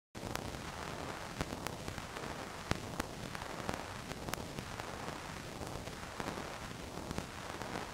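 Steady static hiss with scattered crackling clicks, cutting in suddenly just after the start.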